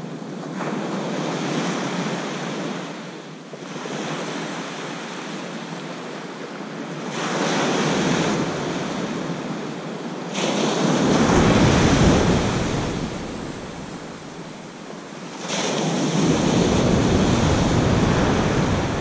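Ocean surf breaking and washing up a sandy beach, swelling and fading with each of several waves. Wind rumbles on the microphone at times in the second half.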